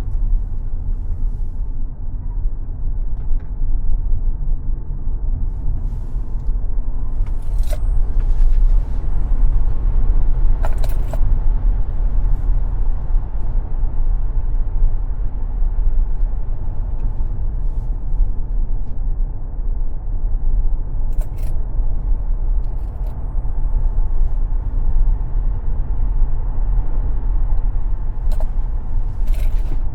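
Tesla Model X driven on a racetrack, heard from inside the car: a steady deep rumble of tyres and road with a faint, steady electric-motor whine above it, and a few short sharp clicks or knocks now and then.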